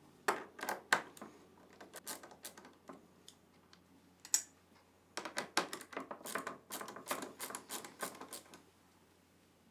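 Small screws being backed out of a plastic washer console, with the tool and plastic parts clicking and rattling: a few clicks at first, then a dense patter of clicks in the second half.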